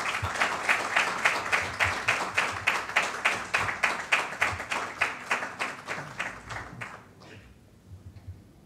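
Audience applauding after a talk, with one set of hands standing out in a steady beat of about three claps a second. The applause dies away about seven seconds in.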